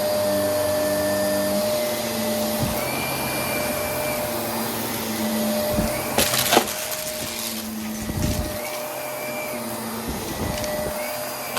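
Vacuum cleaner running steadily with an even motor hum, with a brief loud crackling rattle about six seconds in and a few smaller ticks later.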